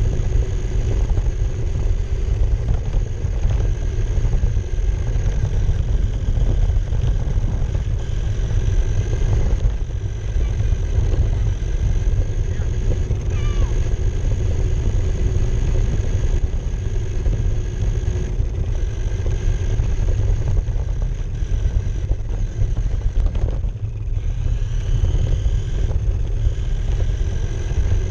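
Low rumble and rattle of an RC car rolling over asphalt, picked up by a GoPro mounted on the car itself, with a steady whine running over it.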